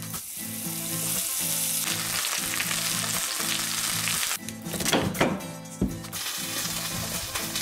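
Possum meat frying in butter in a cast iron skillet: a steady sizzle, with a louder rush about five seconds in and a single knock just after. Background music with a low repeating pattern plays underneath.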